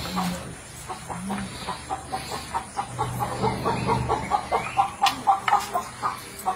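Chickens clucking in a rapid, uneven series, with a few sharp clicks about five seconds in.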